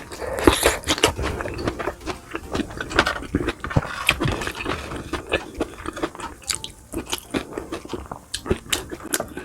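Close-miked chewing and biting of food, a dense run of small irregular clicks and crunches.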